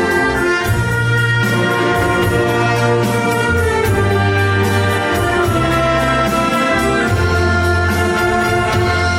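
A wind orchestra playing an arrangement of Korean popular songs, brass to the fore, with sustained chords over bass notes that change every second or two.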